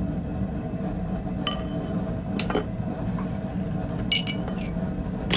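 A few light metallic clinks of steel tools and stock, some with a brief ring, scattered over a steady low hum; a small cluster of clinks comes near the end.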